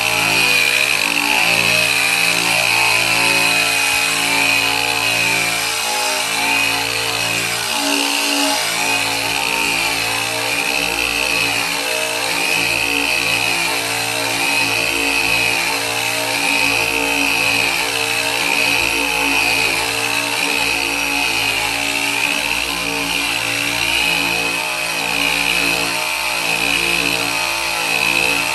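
Handheld power sander running continuously against a bare steel car quarter panel, sanding the welded panel. Its high whine rises and falls about once a second as it is swept and pressed across the metal.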